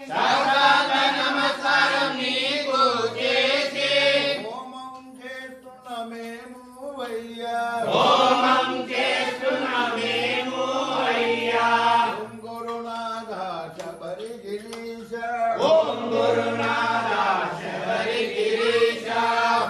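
A group of voices chanting a devotional Ayyappa chant in unison. It comes in three loud phrases of about four seconds each, with quieter singing between them.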